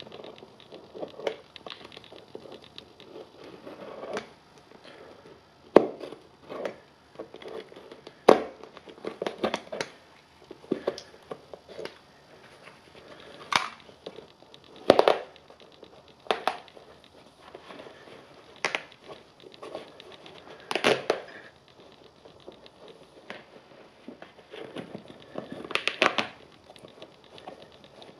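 Canvas high-top sneaker being handled and pulled apart by hand: irregular sharp snaps and cracks, the loudest about six, eight, fifteen, twenty-one and twenty-six seconds in, with fabric and lace rustling between them.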